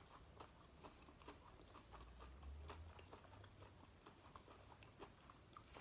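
Faint chewing: soft, irregular wet clicks of food being chewed, a few each second.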